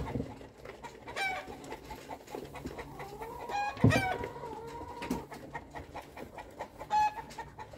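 Chickens clucking and calling several times in short pitched calls, with a longer held call in the middle. There is a loud knock about four seconds in.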